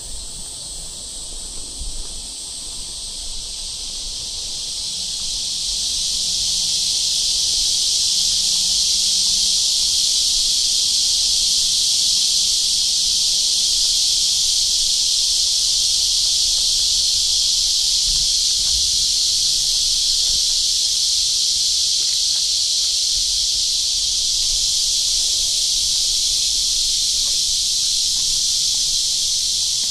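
Chorus of cicadas droning, a dense high buzzing that swells over the first several seconds and then holds loud and steady.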